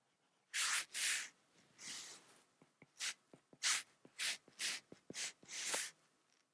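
Stylus strokes on a tablet screen as shading is brushed in: about nine short rubbing strokes, a few of them longer, with faint taps in between.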